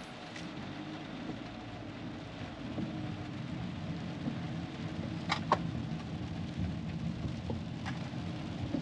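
Inside a moving car in the rain: steady road and engine rumble with rain hitting the car, and a few sharp ticks about five seconds in and near the end.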